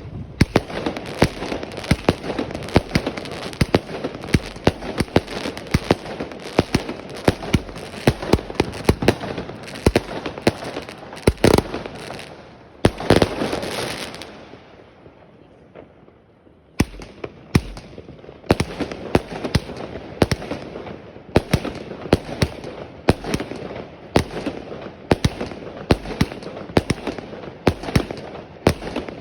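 Fireworks going off as a rapid, dense string of sharp bangs. About halfway there is a longer, louder burst, then a pause of about two seconds before the bangs start again.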